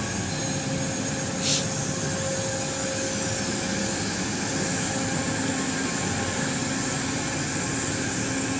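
Steady mechanical drone of running machinery, with a faint hum and hiss, and one short burst of hiss about a second and a half in.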